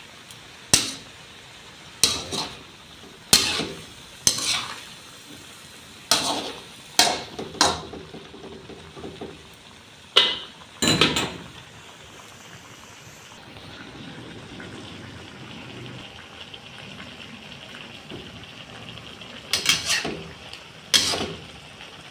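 A spatula clanking and scraping against a metal pan while stir-frying sliced bottle gourd, with a low sizzle underneath. The clanks come in irregular clusters of strokes, with a stretch of plain sizzling and no stirring in the middle.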